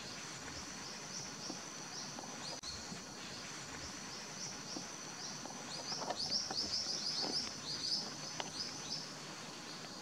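A small bird singing a long series of short, high chirps over a steady high tone. The chirps come a few a second at first, then quicker and louder from about six seconds in, with a few clicks, and stop near the end.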